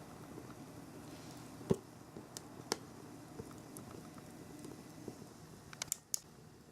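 Fire burning in a steel fire pit: scattered sharp pops and clicks over a low steady rumble, with a few louder cracks about two seconds in and near the end.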